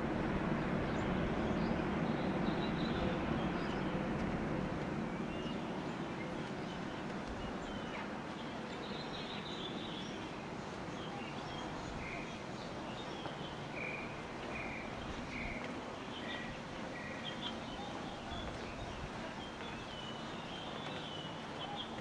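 Outdoor ambience of small birds chirping and tweeting in short high calls, starting about nine seconds in and continuing. A low rumble of a passing vehicle underneath fades away over the first several seconds.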